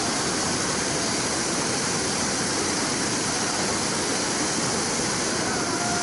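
Whitewater river rapids rushing steadily, a dense, even churning of water with no breaks.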